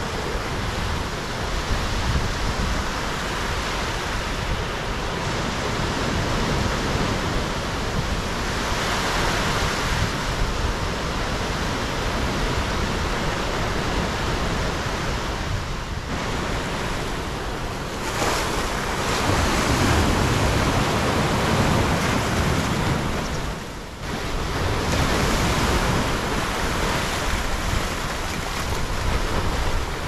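Sea surf: waves breaking and washing up the shore, the rushing wash swelling louder and easing off in turn, with a brief lull about three-quarters of the way through.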